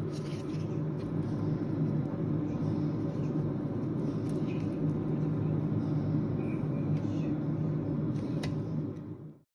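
A steady low machine hum, with a few faint crackles as slices of baked pie are lifted from the baking paper; it cuts off suddenly near the end.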